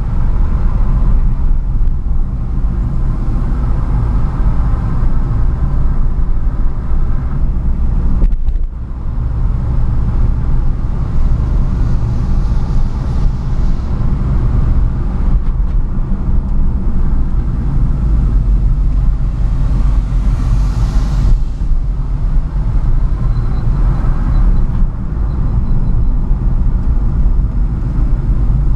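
A car driving, with engine and road noise heard from inside the cabin as a steady low drone that briefly drops about eight seconds in.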